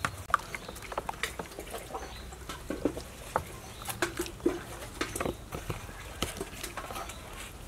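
Metal spoon clicking and scraping against a plastic bowl, with wet squelching, as a whole chicken is turned in liquid batter. The clicks come irregularly, a few each second.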